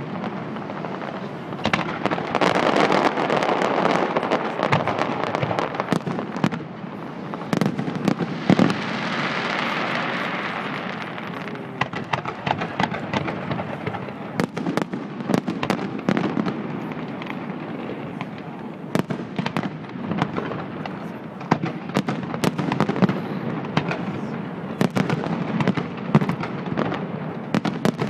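Fireworks display: a continuous run of sharp bangs and crackles, with a hissing, crackling swell about eight to eleven seconds in.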